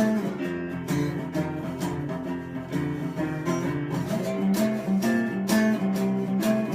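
Acoustic guitar playing an instrumental passage, plucked and strummed chords with a steady pulse, between the song's sung lines.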